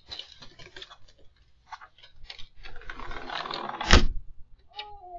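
Close rustling and scuffing through an outdoor security camera's microphone as a person moves right beside it, with a sharp knock about four seconds in, the loudest sound, and a short squeak just before the end.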